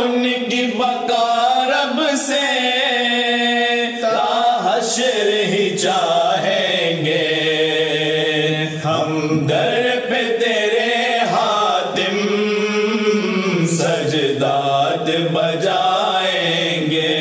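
Voices chanting an Urdu devotional poem, a Dawoodi Bohra ilteja, in a slow melodic recitation with long held notes.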